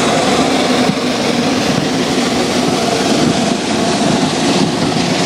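Sentinel vertical-boiler steam locomotive No. 7109 running past close by with a wagon and brake van: a loud, steady noise of the working engine and rolling wheels.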